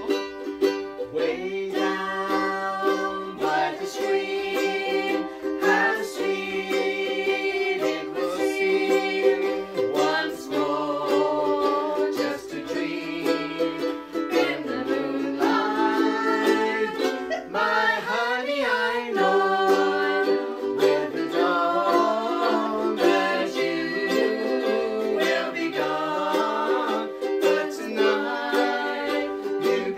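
Several ukuleles strummed together, playing a song, with singing at times.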